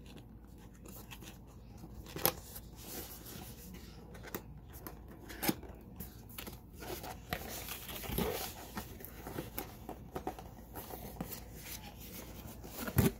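A CPU cooler's cardboard box and its packing being opened and handled by hand: irregular rustling, scraping and tearing of cardboard and plastic, with scattered clicks and a few sharp knocks, the loudest near the end.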